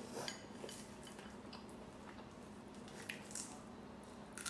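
Faint, scattered clicks of chopsticks against a bowl while eating, over a low steady hum.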